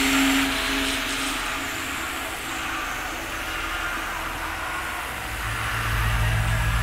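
Horror-film sound design: a steady hiss of noise with a held tone that fades out in the first second or so, then a low pulsing drone that swells in about five seconds in.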